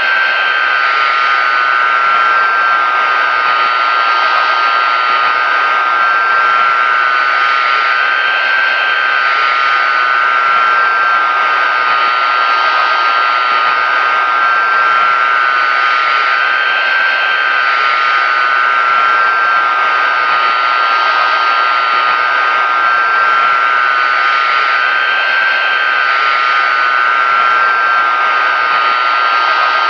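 Pratt & Whitney JT9D-7 turbofan engines of a Boeing 747-200 running steadily: a continuous rushing jet noise with a steady high whine of several close tones, swelling only slightly.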